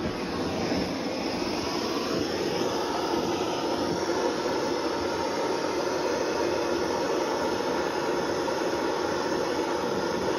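Hand-held gas blowtorch burning with a steady hiss, its blue flame heating soft-soldered crank webs to melt the solder and part them.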